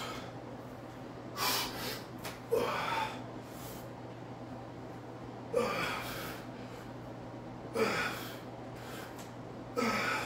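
A man's forceful exhalations with short grunts, about five in all, each one sudden and falling in pitch: exertion breathing during kneeling overhead dumbbell presses.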